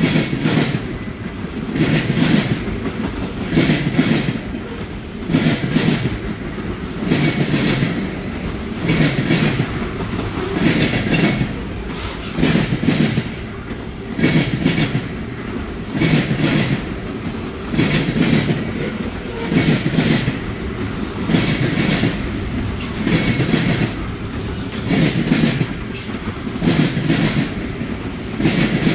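Freight cars of a trash train rolling past, their wheels clicking over the rail joints in regular clickety-clack groups about every two seconds as car after car goes by, over a steady rumble.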